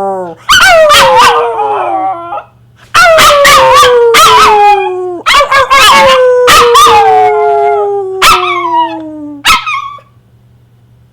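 A Pomeranian-Chihuahua mix dog howling: three long calls that each slide down in pitch, ending with two short yips. The howling is set off by the owner's cue "who is it?", as if someone were at the door.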